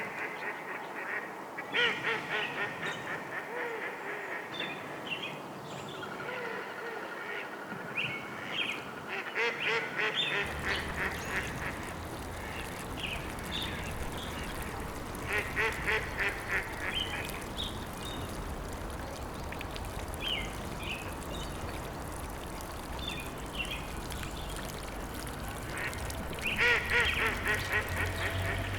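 Birds calling in several bursts of rapid, chattering calls, with short higher chirps between them. About ten seconds in, a low steady rush starts underneath and continues.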